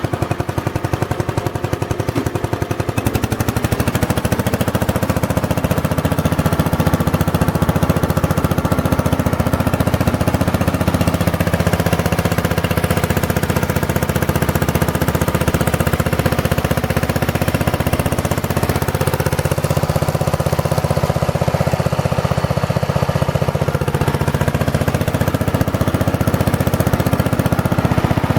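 Magna Trac Deluxe garden tractor's 9 hp Briggs & Stratton 23D single-cylinder engine running steadily under load as the tractor drives in second gear, with a rapid, even firing beat. It gets a little louder a few seconds in.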